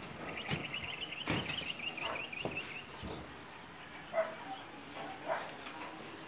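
A small bird's rapid trill of short high chirps, about eight a second, lasting about two and a half seconds, over scattered light knocks and taps.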